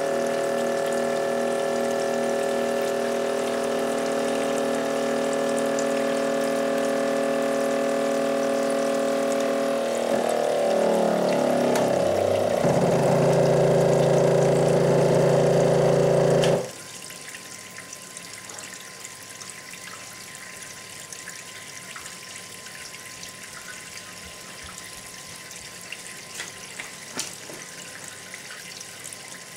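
Grizzly G0704 CNC mill's DC spindle motor running steadily while cutting aluminium under flood coolant. About ten seconds in the motor dies as its armature burns out: the pitch slides and wavers, then a louder strained hum follows as the bound-up machine keeps being driven. A click about two-thirds of the way through is the overloaded power strip tripping, and the machine noise cuts off suddenly, leaving only coolant splashing.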